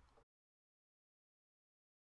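Silence: the last trace of a voice fades out right at the start, then the sound track goes to dead digital silence.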